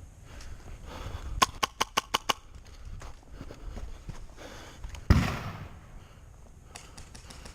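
Airsoft gun firing a quick burst of about six sharp shots in under a second. A single louder thump follows a few seconds later.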